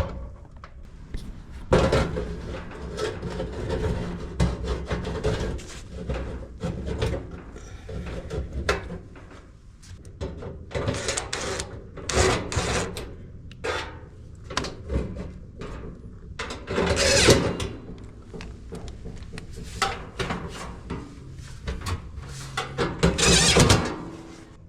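Hands working metal dryer parts: a run of clinks, knocks, rattles and scraping as the new heating element and thermal fuse are handled and fitted, with a few louder bursts of clanking.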